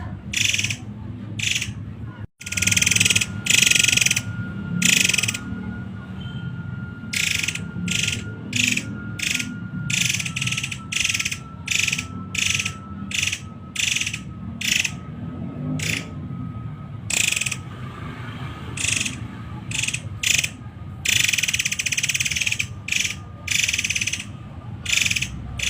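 Murai air (forktail) giving harsh, shrill calls in quick repeated bursts, about one to two a second, over a steady low hum.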